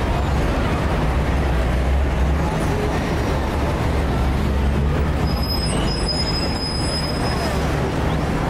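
A steady low rumble, with a thin high squeal held for about two seconds a little past the middle.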